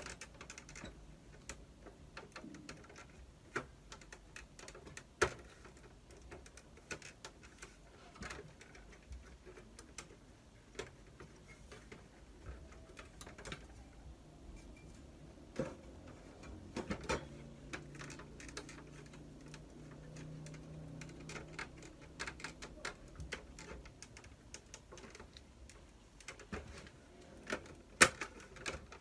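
Irregular clicks and knocks of the plastic casing and internal parts of an opened Samsung ML-1660 laser printer being handled during disassembly, with two louder knocks, one about five seconds in and one near the end.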